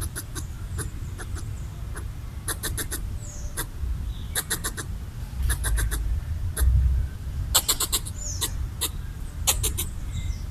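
Red squirrel chattering: repeated short trains of rapid, clicking calls, one burst after another. It is territorial alarm chatter meant to drive off a perceived threat.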